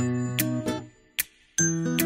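Background music: a light tune of pitched notes with a tinkling, jingle-like accent on some beats.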